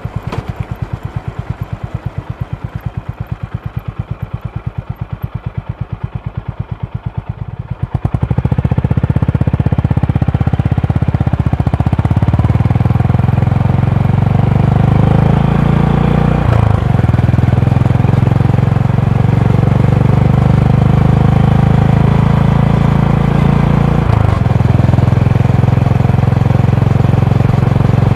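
Honda GB350's air-cooled single-cylinder engine. For about the first eight seconds it thumps slowly and evenly at low revs, then the throttle opens and it runs louder and steadier, with two brief dips in the sound later on.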